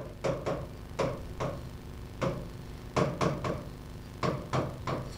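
Irregular short taps and clicks of writing, about a dozen over a few seconds, as a title is written out.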